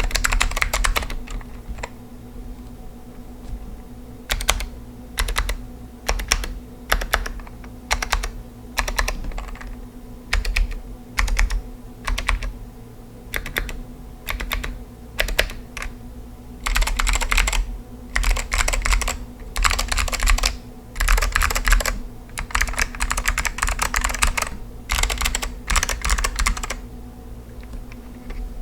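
Typing on an Apple Extended Keyboard II M3501 with stock Alps SKCM White switches, each keystroke a sharp click. It starts with a quick run of keys, goes on to slower, spaced-out single presses, then fast bursts of typing through the last ten seconds or so.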